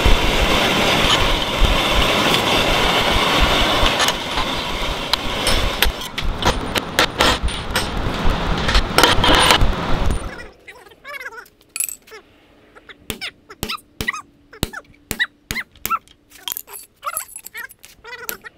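Two handheld gas torches burning with a loud, steady rush as they heat a rusty steel caster wheel's axle. About ten seconds in this stops abruptly, and a hammer strikes a punch held against the axle end in many sharp, ringing metallic hits, irregular and sometimes in quick pairs, driving the axle pin out.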